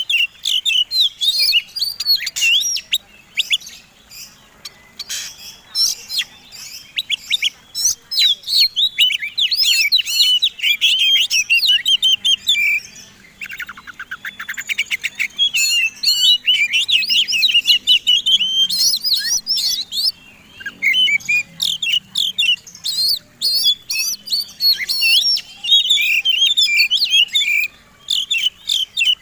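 Oriental magpie-robin (kacer) singing a loud, fast, varied song of chirps, warbles and clicking notes in near-continuous phrases, with a harsh buzzing rasp about halfway through. This is the full competition-style 'gacor' song used as a lure to provoke other magpie-robins to sing.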